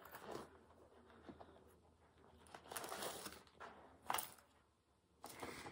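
Faint rustling and crinkling of plastic and paper being handled, in a few short spells, with a sharper crinkle about four seconds in.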